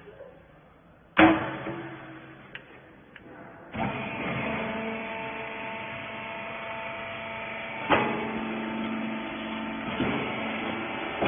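A loud metal bang about a second in, then a hydraulic baler's motor and pump start up and run steadily with a hum and whine, with a few more knocks while it runs.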